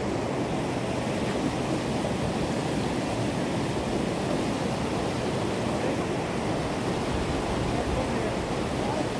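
Steady rushing of white water cascading over rocks in a creek.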